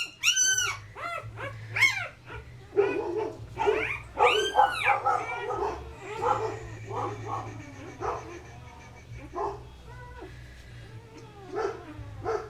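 Newborn Dutch Shepherd puppies crying: a run of loud, high, arching squeals in the first few seconds, then fainter, shorter whimpers and whines.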